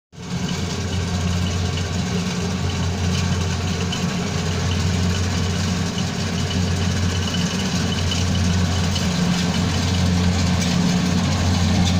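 Diesel engine of rice harvesting machinery running steadily at a constant speed, a low even drone.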